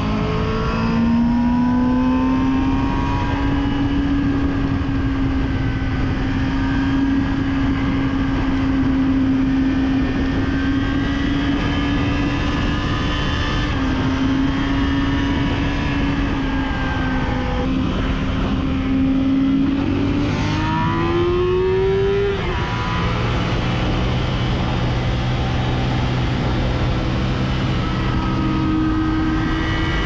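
Yamaha FZ6's inline-four engine running hard at high, steady revs under heavy wind noise, heard from on board at speed. About two-thirds through, the pitch dips, climbs quickly as it revs up, then drops to a lower note.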